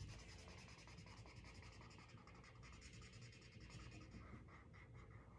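Faint scratch of a felt-tip marker on sketchbook paper, colouring in with quick repeated back-and-forth strokes.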